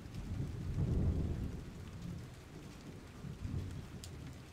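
Thunderstorm ambience: low rolling rumbles of thunder over faint rain, one swelling about a second in and a weaker one near three and a half seconds, dying away toward the end.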